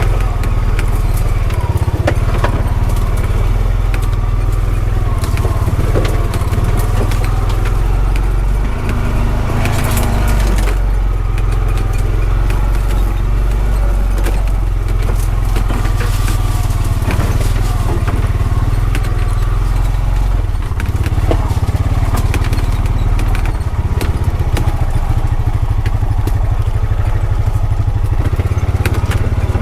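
Honda Pioneer 520 side-by-side's single-cylinder engine running steadily as it drives over rough ground, with frequent clicks and rattles over the low engine sound.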